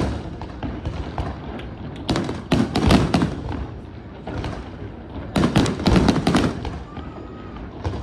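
Aerial fireworks going off in volleys: clusters of sharp bangs with crackling tails, coming every second or two with short quieter gaps between them.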